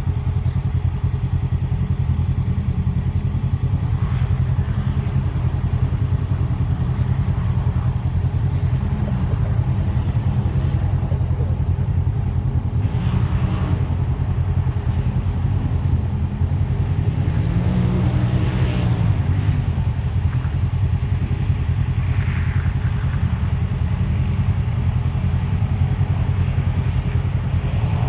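Turbocharged side-by-side UTV engine revving up and down in repeated sweeps as it is driven around a muddy dirt track, over a constant low rumble.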